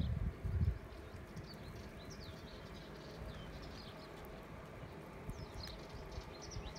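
Small birds chirping on and off, short high chirps scattered over faint outdoor background noise. A few low thumps in the first half-second.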